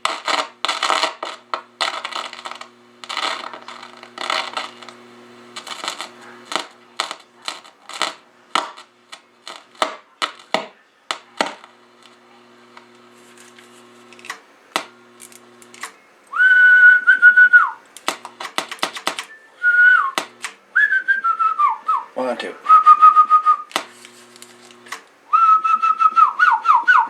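Clicking and crackling over a low steady hum for about the first eleven seconds. From about sixteen seconds in comes loud whistling: held notes that drop off in falling glides, whistled into the CB microphone as a test.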